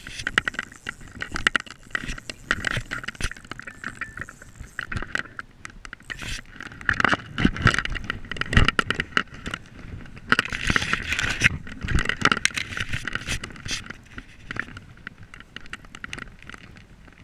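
Spinning reel clicking in quick, irregular bursts of a second or so, mixed with rustling and a few low knocks from handling.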